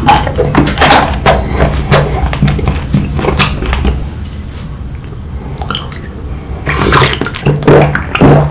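Close-up mouth sounds of eating: crisp bites and chewing, a few sharp strokes a second, easing off after about four seconds. Near the end come wet swallowing and gulping as a drink is taken from a plastic bottle.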